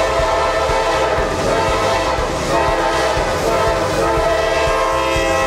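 Freight locomotive's air horn sounding one long continuous warning blast at a grade crossing, several tones together over the low rumble of the approaching train. The horn's pitch drops slightly about four seconds in.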